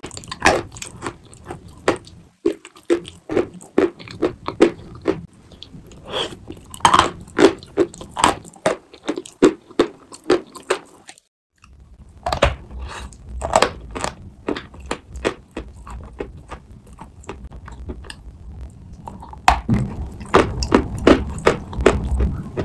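Chalk being bitten and chewed: repeated sharp crunches of a chalk block. After a brief break near the middle, bites come from a chalk block coated in wet chalk paste, the crunches sitting over a low rumble.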